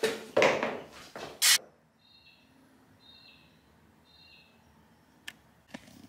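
Shoes scuffing on tile and a mechanical dial bathroom scale clattering as someone steps onto it, ending in a short sharp knock about one and a half seconds in. Then three faint bird chirps about a second apart, and a couple of light clicks near the end.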